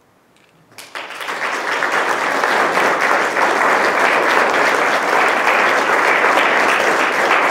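Audience applause breaking out suddenly about a second in after a brief quiet, then going on steadily as dense clapping.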